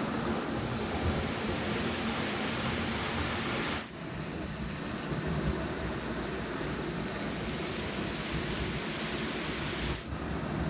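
A waterfall of about 50 feet, water pouring down in a steady rushing noise, dipping briefly about four seconds in and again near the end.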